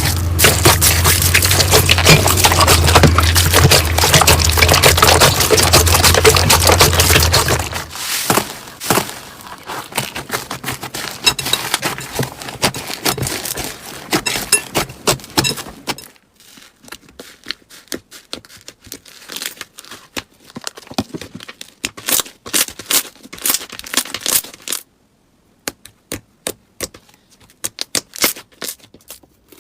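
Slime being squeezed and poked by hand, crackling and popping. A dense run of crackles over a low hum lasts about eight seconds and then stops suddenly, giving way to sparser, quieter pops and clicks.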